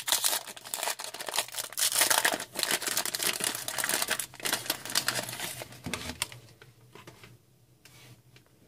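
Crinkling and rustling of a trading-card pack's wrapper and plastic as hockey cards are handled, a dense run of small crackles that dies away about six seconds in.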